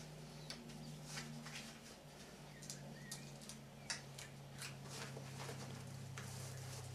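Quiet room tone with a low steady hum, broken by scattered faint clicks and soft rustles of clothing and a hat being handled.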